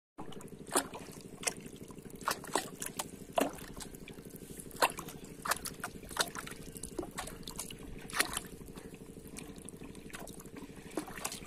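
Pond water splashing and sloshing around a plastic bottle float as it is jerked about by a hooked fish, with sharp splashes at irregular intervals about every half second to second.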